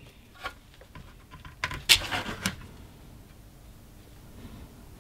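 Small clicks and rattles of test leads and probes being handled and placed on a circuit board, a cluster of them over the first two and a half seconds, loudest about two seconds in.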